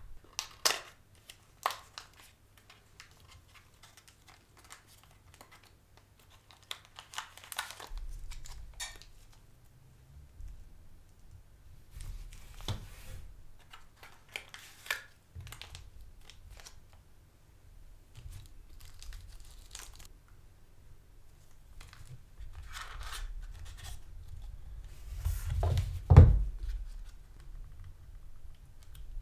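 Unboxing handling noises: a cardboard box insert being lifted and handled, and small clear plastic bags of spare parts rustling, crinkling and being torn open in short scattered bursts. A single louder thump comes near the end.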